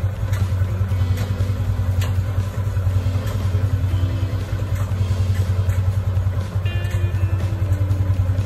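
Background music with a steady, evenly pulsing beat over deep bass, and a melody that steps from note to note.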